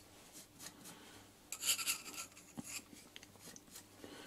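Carbide inserts of an 80 mm face mill, turning in a lathe with only two of its six inserts fitted, scraping across a metal block: an irregular scratchy rasping as chips spray off, loudest about a second and a half in, over a faint steady low hum.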